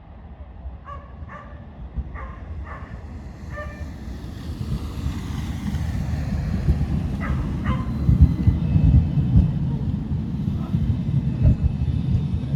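Tram approaching and rolling past, a low rumble that builds from about four seconds in and is loudest in the second half. Several short animal calls sound over the first eight seconds.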